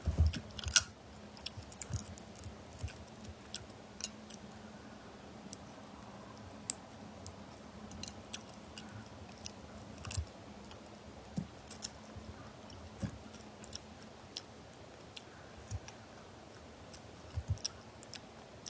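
Crayfish shells cracking and clicking as they are peeled by hand, with soft chewing and mouth sounds. A cluster of loud cracks comes in the first second, then sparse clicks.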